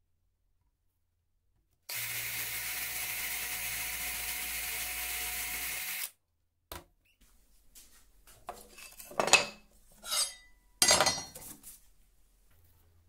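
Cordless drill with a thin bit drilling a small hole into wood, running at a steady speed for about four seconds and then stopping. Several loud clinks and knocks follow near the end as tools and wooden pieces are handled.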